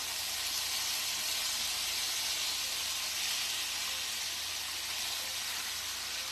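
Lightly breaded chicken pieces sizzling steadily as they fry in a pan, a constant hiss.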